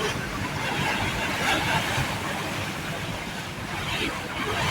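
Catamaran under way: its engines running steadily with water rushing along the hull, and faint voices of passengers underneath.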